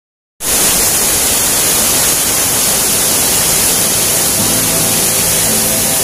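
Water pouring down a small rocky cascade into a pool, a steady hissing rush. Music with held notes comes in softly under it about four seconds in.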